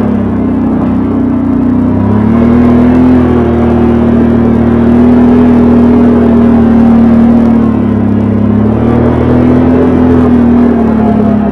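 Can-Am 570 XT ATV's V-twin engine running steadily under way, its pitch dipping and rising again about two seconds in and again around eight seconds as the throttle eases and reopens.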